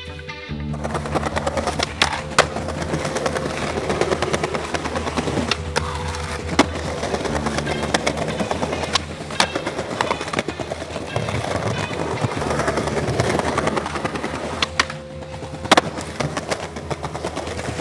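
Skateboard wheels rolling on smooth stone paving, with several sharp wooden clacks of the board popping and landing, over background music.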